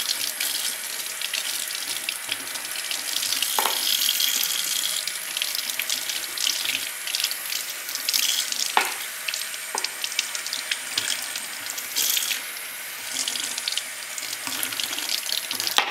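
Kitchen tap running water over a savoy cabbage in a large sieve, rinsing sand out of its leaves. There are a few short knocks in the flow as the cabbage and sieve are handled.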